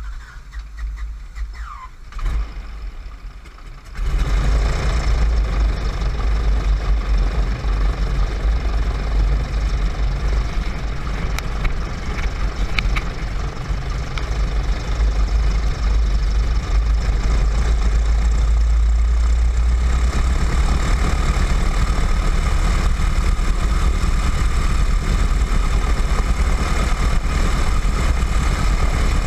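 WACO YMF-5 biplane's Jacobs seven-cylinder radial engine catching about four seconds in, then running steadily at idle, heard close behind the propeller.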